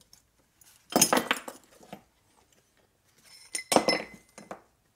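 Pieces of scrap brass plumbing hardware clattering and clinking together in two short bursts, about a second in and again near three and a half seconds, the second ending in a bright metallic ring.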